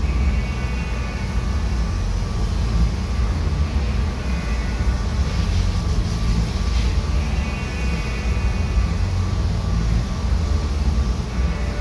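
Steady low rumble of a paint spray booth's ventilation fans. Over it, compressed air from an air hose hisses on and off every few seconds.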